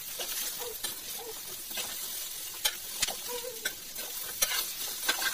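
Steel ladle stirring coconut pieces and peanuts in a hot steel kadhai, with a steady sizzle and irregular clinks and scrapes of the ladle against the pan.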